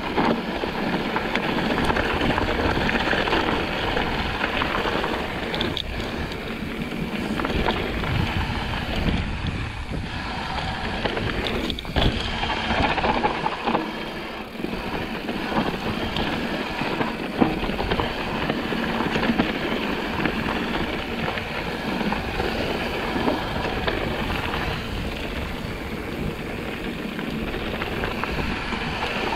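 Mountain bike descending a rough dirt and rock trail: a steady rush of tyre and riding noise with the bike rattling and knocking over rocks throughout, a few sharper knocks standing out.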